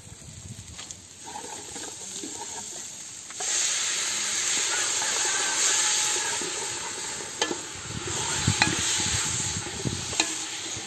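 Raw chicken pieces sizzling in a hot metal pot, with the sizzle starting suddenly about three seconds in. A wooden spatula stirs the chicken and clicks against the pot a few times: chicken being sautéed before the rice goes in for arroz caldo.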